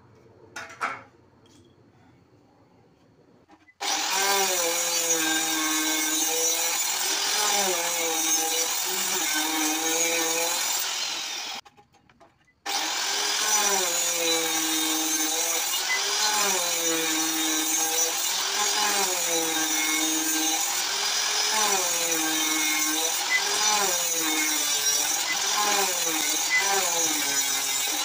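Small handheld electric circular saw cutting through a wooden board, its motor pitch dipping and recovering as the blade bites. It starts about four seconds in, stops for about a second near the middle, then runs on cutting.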